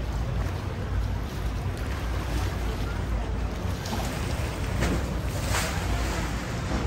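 Thames Clipper riverboat under way: a steady low engine rumble with water rushing past the hull and wind on the microphone.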